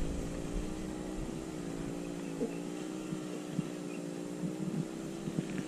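A steady engine drone, one pitched hum with a slight waver in pitch, with a few faint clicks over it.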